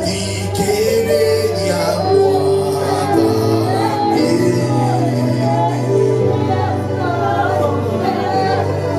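Gospel music with singing, a female voice leading over sustained keyboard chords and a steady bass.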